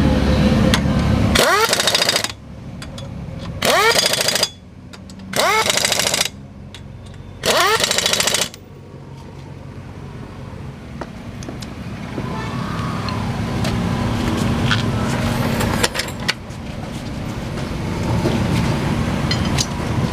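Elephant-brand 850 Nm air impact wrench hammering in four short bursts of about a second each, its pitch rising as each burst spins up, tightening a nut down until it is fully tight. Before the bursts, a loud low running sound cuts off about a second and a half in.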